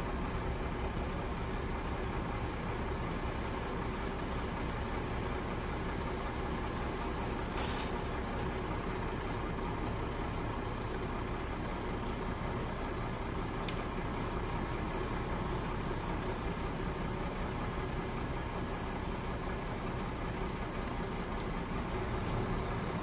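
A motor running steadily, a constant even drone with a couple of faint clicks.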